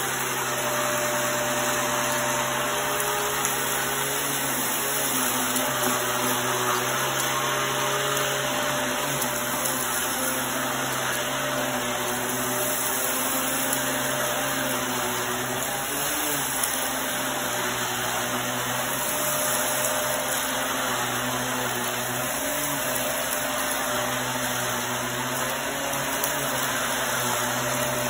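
Hoover upright vacuum cleaner running steadily while it is pushed over a rug, sucking up sand and fine dirt. Its motor hum wavers slightly in pitch as it moves back and forth.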